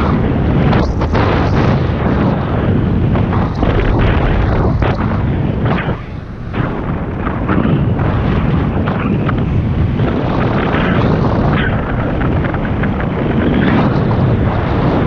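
Wind buffeting the GoPro's microphone in flight: a loud, rough rumble that dips briefly about six seconds in.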